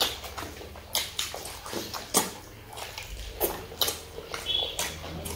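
Close-up eating sounds of people chewing rice and boiled-egg curry eaten by hand: irregular wet mouth smacks and clicks, roughly two a second.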